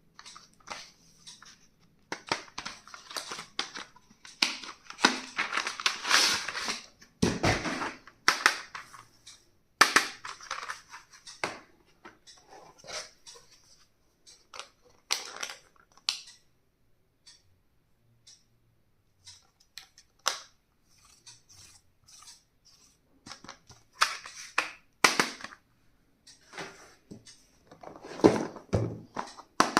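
Stationery and its packaging being handled and unpacked: irregular rustling and crackling, with sharp clicks and taps as items are opened and set down. There is a heavier knock about seven seconds in.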